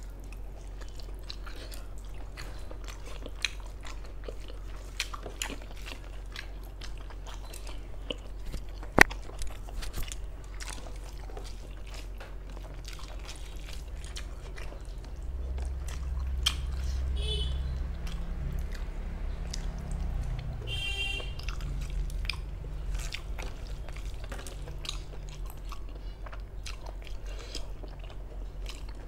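Close-miked chewing of a mouthful of rice and curry eaten by hand: many small wet mouth clicks and smacks, with one sharper click about nine seconds in.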